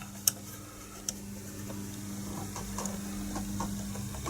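Plastic case of an MF47 analogue multimeter being worked and prised at by hand, giving small clicks and creaks, with a few sharper ticks near the start and around a second in, over a steady low hum.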